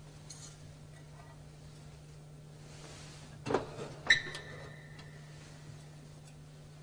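A dull knock, then about half a second later a sharp metallic clink that rings briefly: a metal altar vessel being set down or closed on the altar. A faint steady hum runs underneath.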